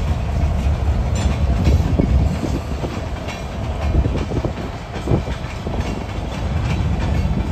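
Several Canadian Pacific diesel locomotives working in multiple, GP20C-ECO units among them, passing close by: a heavy engine rumble with the wheels clicking over the rail joints.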